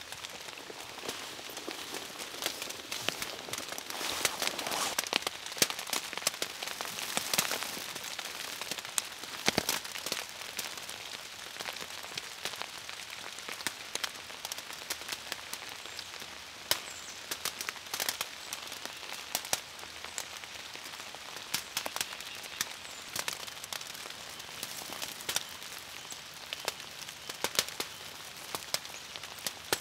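Rain falling steadily: a continuous hiss with many sharp, irregular drop ticks.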